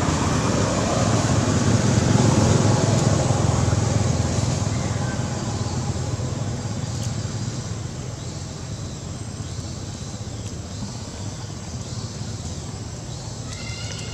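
Low rumble of a passing motor vehicle, swelling over the first few seconds and then slowly fading away.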